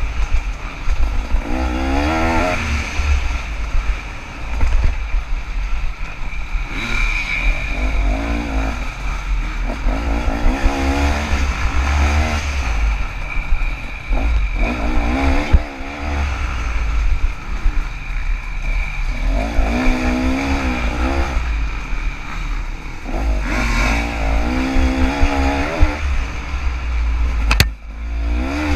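KTM 300 two-stroke dirt bike engine revving up and falling back again and again as the bike is ridden hard along a woods trail, over a heavy low rumble. A sharp click near the end.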